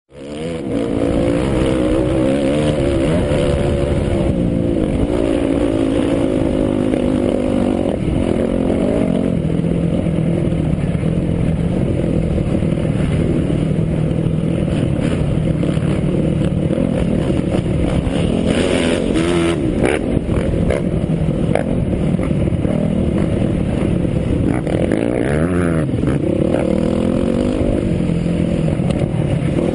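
Off-road racing motorcycle engine running hard, heard from on board the bike; its pitch wavers with the throttle, with quick rises and falls in revs about two-thirds of the way through.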